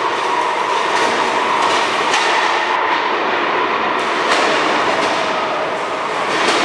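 Combat robots running in an arena: a steady whine of spinning weapons and drive motors, with sharp metal clanks of hits several times.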